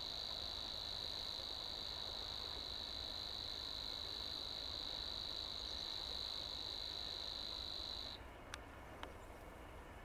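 Savi's warbler singing its long, even, high buzzing reel, which cuts off suddenly about eight seconds in.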